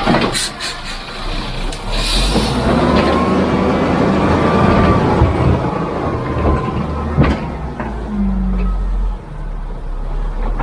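Heavy construction machinery working: a steady engine rumble with scattered knocks and clanks, and a short hiss about two seconds in.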